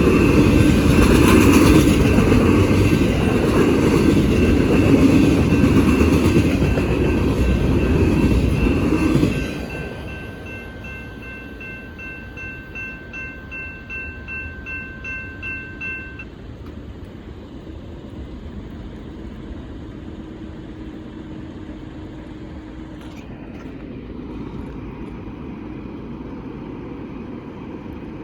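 Freight train rolling past, a loud rumble and rattle of wheels and cars that drops away sharply about nine seconds in. A steady ringing tone carries on after it and stops about sixteen seconds in, leaving a faint steady background.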